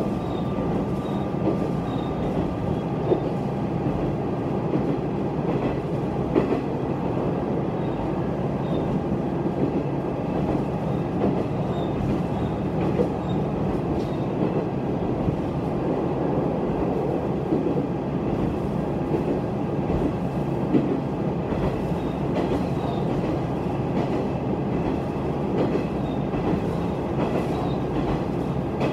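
Heisei Chikuho Railway diesel railcar running steadily, heard from inside the passenger cabin: an even rumble of engine and wheels on rail, with a few sharp clicks along the way.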